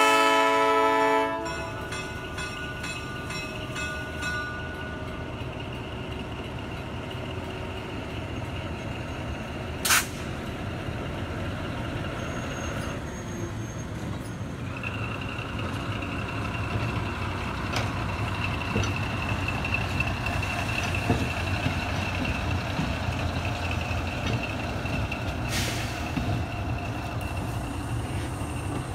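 Diesel switcher locomotive's horn sounding a chord that cuts off about a second in. After that the locomotive's engine runs and the passenger cars rumble past on the rails, with a sharp crack near the middle and a thin, steady high squeal from about halfway on.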